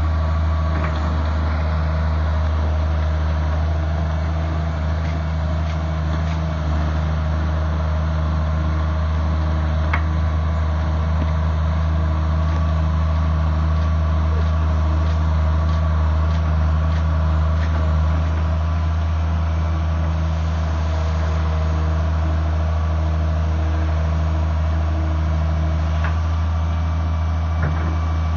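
Komatsu PC120 tracked excavator's diesel engine running steadily at an even speed, with a few faint clicks.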